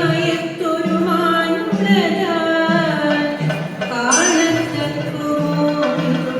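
Carnatic-style music with a singing voice carrying a gliding melody over low sustained notes and percussion.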